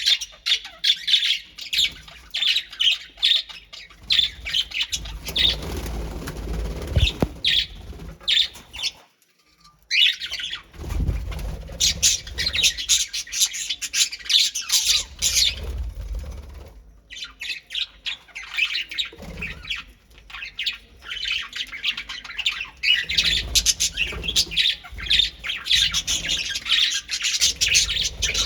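A colony of small caged birds calling together: many rapid, overlapping chirps and squawks, with a short break about nine seconds in.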